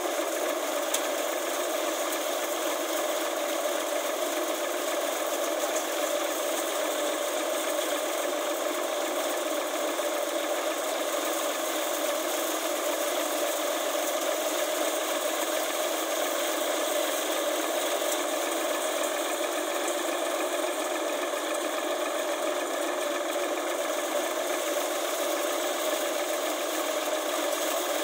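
Tractor-driven thresher threshing chickpea plants: the thresher's drum and sieves rattle and drone steadily, over the tractor's diesel engine running under load.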